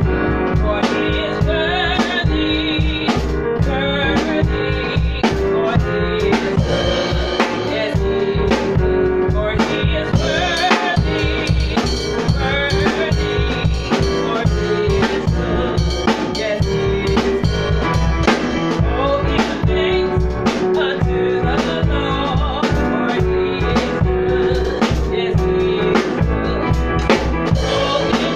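Live band music: a small drum kit keeping a steady beat on snare and bass drum, over keyboard, played as a sound check of the setup's balance.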